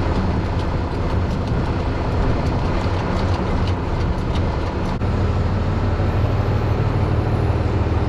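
Farm tractor engine running steadily, a deep low hum. About five seconds in its note becomes fuller and louder. Faint ticks sound over it in the first half.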